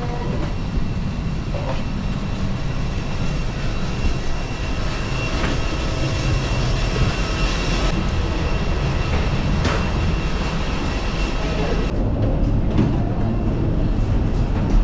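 Steady mechanical rumble with a thin, steady high whine: aircraft and airport machinery noise around a parked airliner during disembarking. The higher part thins out about twelve seconds in.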